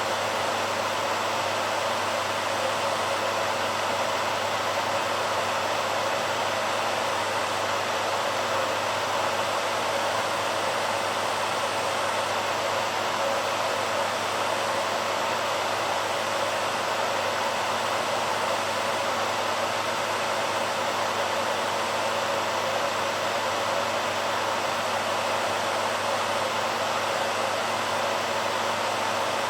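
BaByliss hairdryer running steadily: an even airflow noise with a faint low hum underneath.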